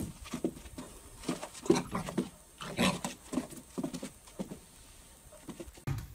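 A puppy barking at its own reflection in a mirror: a string of short, separate barks with brief gaps between them.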